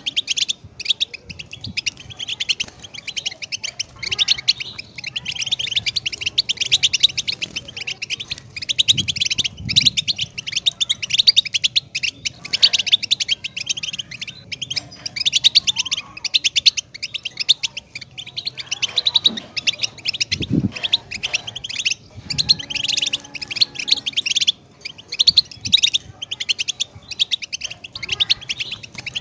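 European goldfinch singing: a fast, continuous twittering song of liquid trills and chirps in runs broken by short pauses. There is a low thud about two-thirds of the way through.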